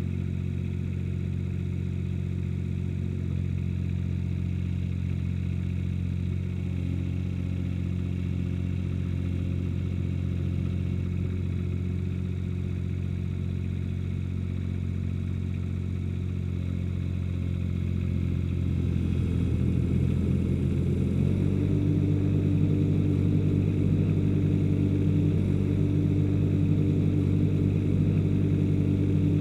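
Ransomes HR300 mower's engine running steadily, then revving up about two-thirds of the way through and holding at the higher, louder speed.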